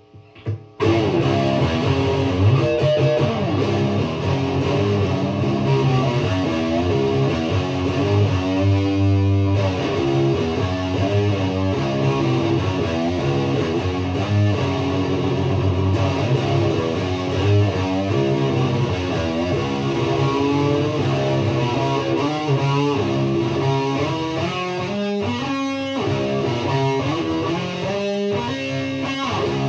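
Guitar music, led by what sounds like electric guitar, resuming after a brief break in the first second and then playing on steadily.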